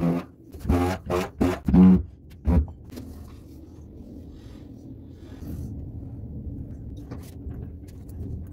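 A voice in short bursts for the first two and a half seconds, then a low steady hum with a few faint clicks.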